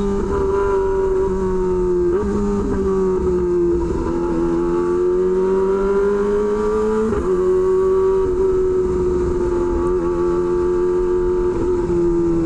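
Kawasaki Ninja ZX-25R's 250 cc inline-four running through an SC Project aftermarket exhaust at steady cruising revs. The pitch eases gently down and up with the throttle, with brief dips about two, four and seven seconds in.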